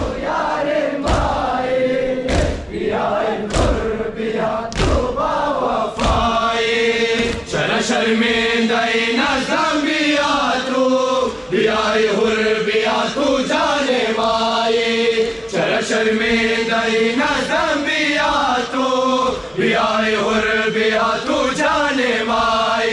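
A group of men chanting a Muharram noha together on long held notes, with regular thumps about every second and a quarter keeping the beat: matam chest-beating.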